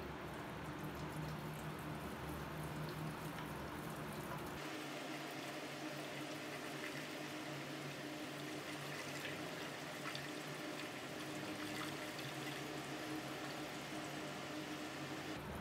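Gasoline pouring steadily from a plastic jug through a funnel into a motorcycle fuel tank.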